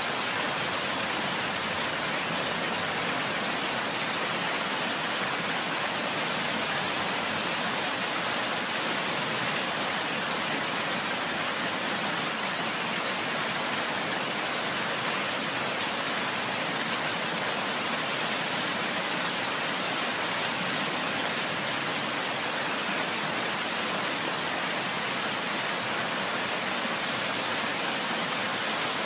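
Steady rushing water, an even hiss with no separate splashes or drops, unchanging throughout.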